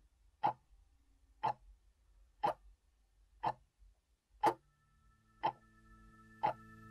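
Clock ticking once a second, seven ticks, with a held musical chord fading in underneath about halfway through.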